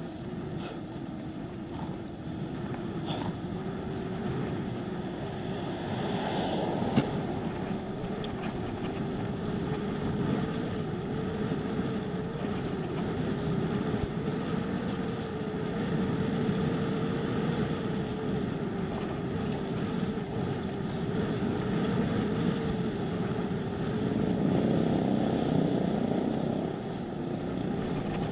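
Road and wind noise from a bicycle rolling along a paved road, picked up by a camera mounted on the bike: a steady rushing noise with a hum that wavers slightly in pitch, and a single click about seven seconds in.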